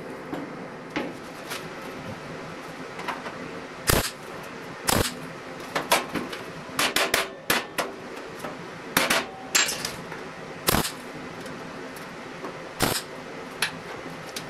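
Hammer tapping on the sheet-steel fender along its tack-welded seam: about a dozen sharp metallic taps, irregularly spaced, some in quick clusters.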